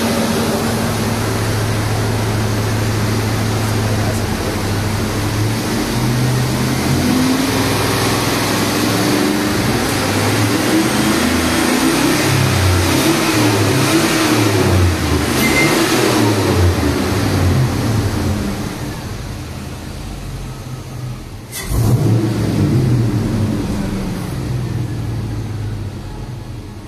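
Chevy Silverado SS V8 through a straight-pipe exhaust with race cats: a steady idle for about five seconds, then repeated revs rising and falling. The sound fades after about 18 seconds, comes back with one sharp rev near 22 seconds that falls away, and settles into a quieter low note.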